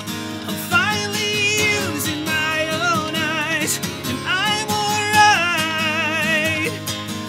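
Male voice singing long, drawn-out notes with heavy vibrato over acoustic guitar, with no words in the line.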